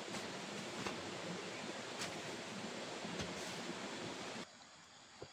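Steady rushing outdoor noise with a few faint clicks, dropping away abruptly about four and a half seconds in.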